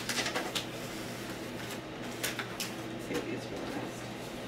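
Trading cards and plastic mail packaging being handled: scattered short crinkles and clicks over a steady low hum.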